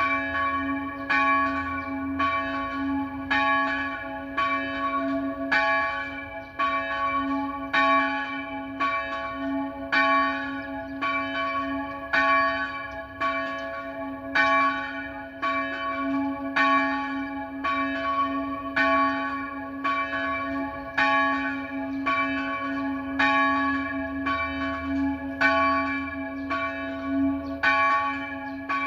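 A single church bell swung in the Tyrolean style, ringing steadily at about one stroke a second. It is the middle bell of St Martin's tower, tuned to a slightly flat D4, rung alone.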